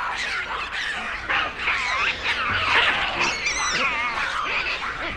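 Hamadryas baboons screaming in a fight and chase: many overlapping shrill calls whose pitch wavers, the loudest near the middle.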